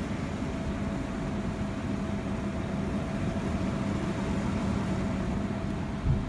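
Steady low background rumble with a faint hum, and a single short low thump near the end.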